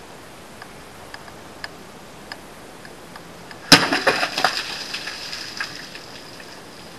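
A Gerber Bear Grylls Parang machete slashing through a row of three full 2-liter plastic soda bottles about halfway in: one sharp whack, then a second or so of clattering bottles and splashing soda that dies away.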